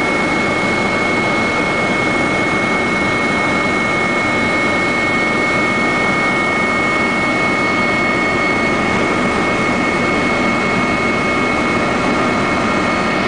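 Helicopter cabin noise in cruise flight: the engines and rotor running as a loud, steady drone with a steady high whine on top.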